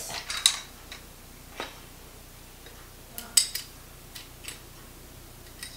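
Hard plastic trampoline handlebar parts clicking and knocking as they are handled and fitted together. There are a few sharp clicks about half a second in, one near the middle, and another cluster around three and a half seconds in.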